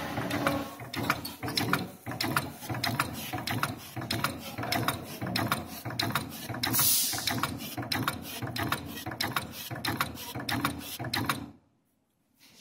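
Automatic roll-to-sheet cutting machine running, feeding and cutting sheet material: a rapid series of sharp clicks over a steady mechanical hum, with a brief hiss about seven seconds in. The machine stops abruptly near the end.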